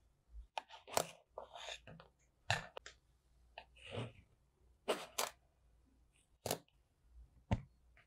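A knife slicing and scraping through packed kinetic sand, giving crisp crunching strokes one after another with a softer crumbling rustle between them.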